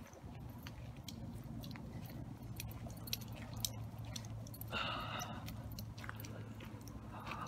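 Footsteps crunching and crackling on a frosty, leaf-strewn muddy track, over a steady low rumble of handling or wind noise. A single short, higher-pitched sound comes about five seconds in.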